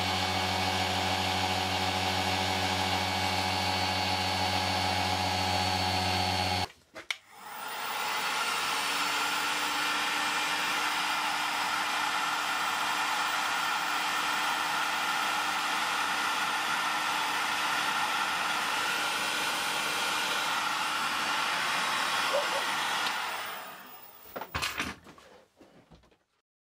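A Dremel-type flex-shaft rotary tool runs steadily at one pitch while a 1 mm drill bores an eye-pin hole in Welsh slate, then stops about six and a half seconds in. After a short gap a steady rush of blown air from a dryer drying the wet stone runs for about fifteen seconds, then fades away near the end.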